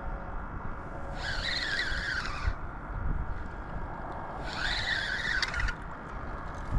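Fishing reel whirring in two bursts of about a second each, its pitch wavering, while a hooked flounder is brought in, over a steady low rumble.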